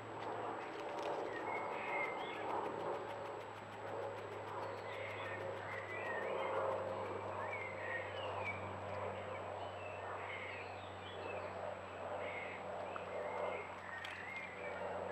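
Small birds chirping and singing, in short scattered phrases, over a steady low hum and a thin, faint, high-pitched whine.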